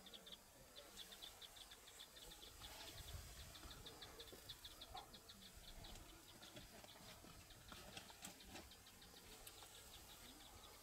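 Near silence with faint, steady chirping: a rapid, even series of short high chirps, about five a second. A faint low rumble comes in around three seconds in.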